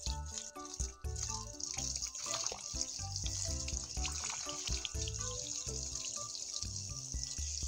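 Water from a hose spraying and splashing over a hanging cluster of young green mangoes, under background music with a steady beat.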